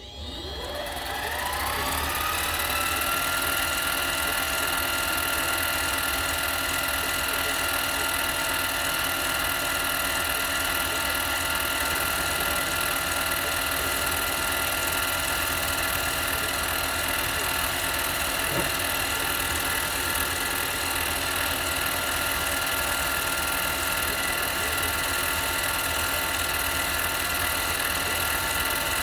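Harbor Freight mini lathe spinning up. The whine of its motor and gearing rises in pitch over the first two seconds or so, then runs at a steady speed.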